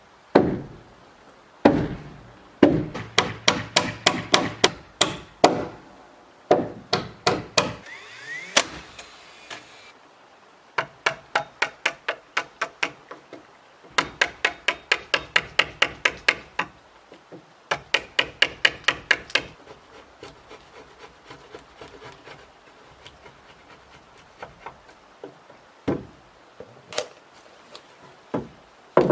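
Hand hammer driving nails into wooden framing lumber, in quick runs of about five blows a second broken by short pauses.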